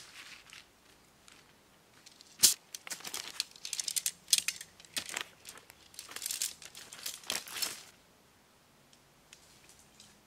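Segmented tent poles being pulled from their nylon bag and clicked together, a run of sharp clinks and clacks with fabric rustling. The loudest is a single sharp clack about two and a half seconds in, and the clatter stops near the end.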